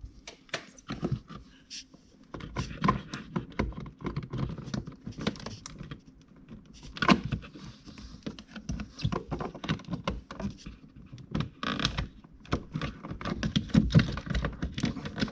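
Irregular clicks, taps and light knocks of plastic and wire being handled as the new ice maker's wiring harness is routed and pressed into the freezer's plastic wire guides.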